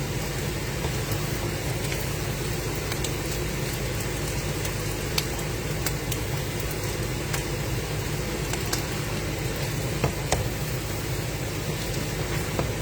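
Food in a frying pan starting to sizzle: a steady hiss with a few scattered small pops and clicks, over a low steady hum.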